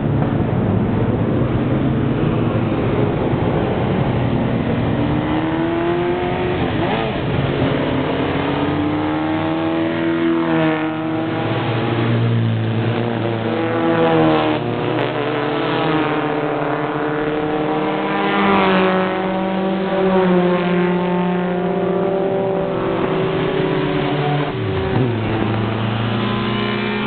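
Engines of several vintage race cars accelerating up the road, their pitch rising and falling again and again with more than one engine heard at once, growing nearer toward the end.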